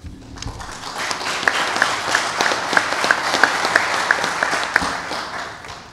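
Small audience applauding. The applause builds over the first second and fades away near the end, with one nearby clapper's sharp claps standing out about three times a second.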